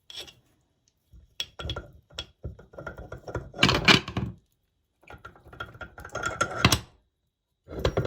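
Meat grinder running with a gear and metal clatter as it grinds ice cream, in three bursts with silent gaps between; the loudest stretch is a little before the middle.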